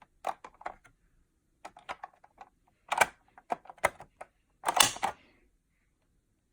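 Irregular clicks and clacks of a manual fire alarm pull station being handled and pulled, the loudest about three seconds and five seconds in.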